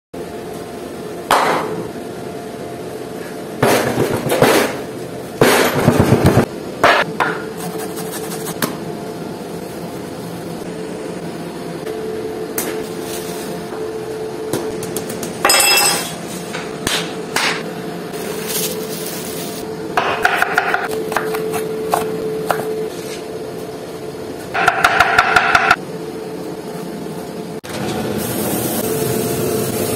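Kitchen meat-prep strikes: cleaver and meat-mallet whacks on minced beef over a wooden board, coming in several short runs of rapid blows. Near the end comes sizzling, as the raw meat patty is laid on a hot grill.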